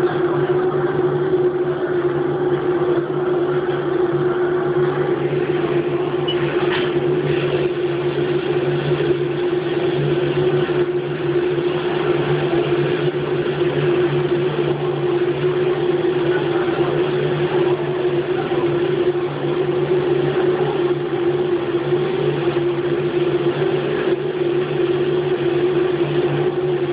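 Haas CNC machine running with a steady, unchanging hum at two fixed pitches, one low and one higher, with a single faint click about seven seconds in.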